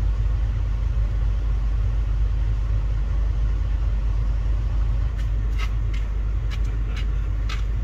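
Camper van engine idling, heard from inside the cab as a steady low rumble, with a few light clicks over the last few seconds.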